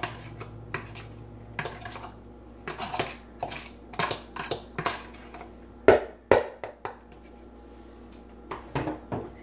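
Scattered clicks, knocks and light scrapes of a plastic container and a mixing bowl being handled as chopped onion and celery are emptied out. Two sharper knocks about six seconds in are the loudest.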